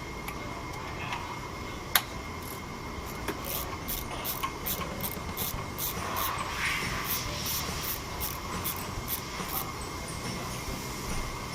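Toyota Yaris engine at a rough idle, a steady low running sound with one sharp click about two seconds in and a regular high ticking a few times a second through the middle.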